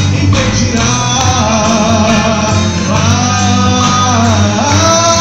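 A man singing a gospel praise song through a microphone and PA over amplified instrumental accompaniment, holding long, wavering notes in the second half.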